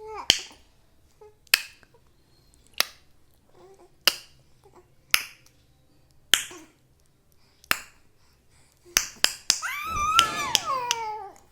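Sharp single clicks, like finger snaps, repeated about once every second and a quarter, sounds for a baby to respond to. Near the end a baby's drawn-out squeal of about a second and a half falls in pitch, with more clicks over it.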